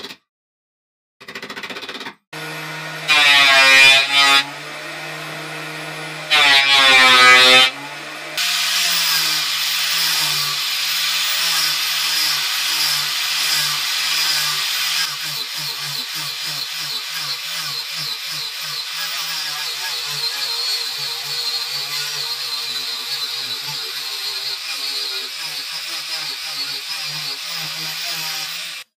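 Angle grinder with a sanding disc on a rubber backing pad, running and sanding a wooden piece. Its steady whine gets louder and wavers in two short stretches about three and six seconds in, then holds on with a level that shifts as the disc is pressed along the wood.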